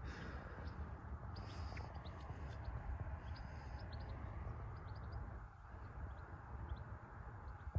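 Quiet open-air ambience: a low wind rumble on the microphone, with faint short bird chirps scattered through it. A single sharp click comes right at the end.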